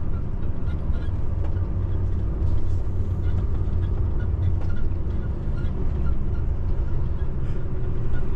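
Heavy truck's diesel engine and tyres, a steady low drone heard from inside the cab while cruising on the highway.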